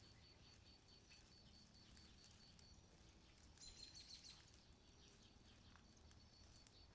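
Near silence: faint outdoor ambience with a faint, high, evenly repeated peeping throughout, a brief cluster of high chirps about halfway through, and scattered light ticks.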